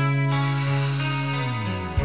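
Background music led by guitar, with held notes and a low note that slides down near the end.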